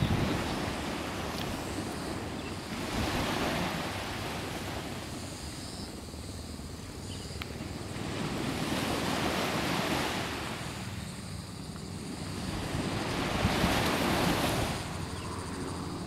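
Small waves breaking and washing up a sandy beach, rising and falling in three slow surges a few seconds apart.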